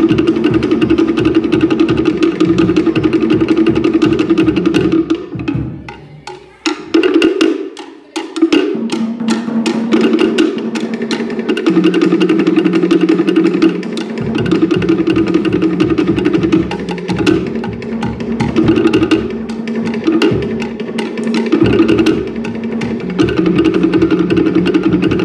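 Cook Islands drum ensemble: wooden slit-log drums (pate) beaten rapidly with sticks, with a deeper drum beat underneath that drops out for stretches. The drumming breaks off briefly about six seconds in and picks up again a couple of seconds later.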